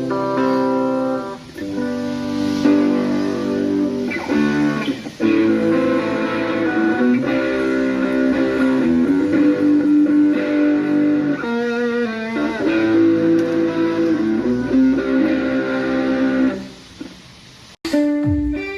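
Live instrumental music led by a plucked string melody of held notes over a bass line. It fades away about three-quarters of the way through, then cuts suddenly to a new passage just before the end.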